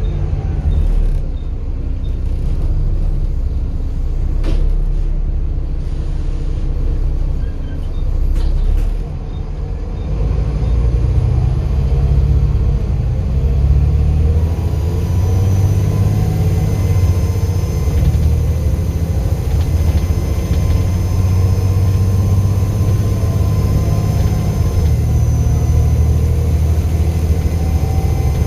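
Volvo B7 bus's diesel engine running with a heavy low rumble and a few clicks early on. About halfway it pulls harder and a steady high-pitched turbocharger whistle joins it.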